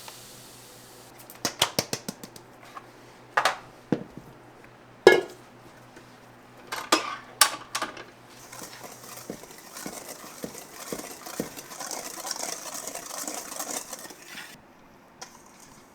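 Metal kitchenware clinking and clattering: a quick run of light clicks, then several sharp knocks a second or two apart, followed by a few seconds of hiss with light clicks.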